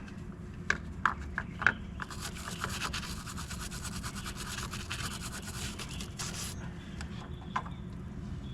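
A few sharp metal clicks, then several seconds of brisk scrubbing, typical of a wire brush worked over a corroded battery terminal, which tails off near the end.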